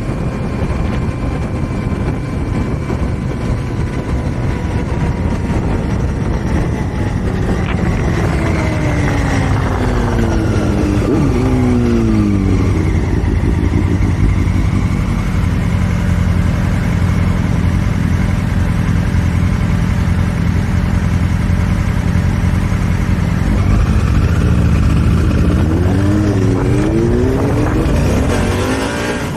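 2018 Honda Africa Twin Adventure Sport's 998 cc parallel-twin engine. It drops in pitch as the bike slows, then holds a steady low idle for about ten seconds before revving up again near the end as it pulls away. Wind rush runs underneath throughout.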